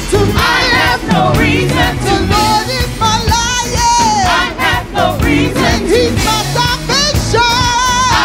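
Gospel praise team singing together into microphones, voices with vibrato over instrumental backing with a steady beat.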